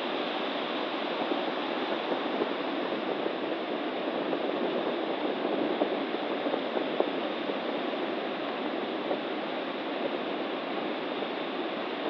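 Stormy sea surf breaking and washing on a beach, a steady rushing roar with a few brief crackles around the middle.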